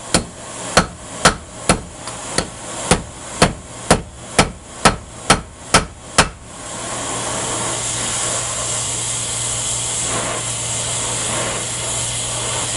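A 3 lb shop hammer striking heated bronze on an anvil, about a dozen sharp blows at roughly two a second, stopping about six seconds in. Then the steady hiss of a cutting torch's flame as the bronze is reheated.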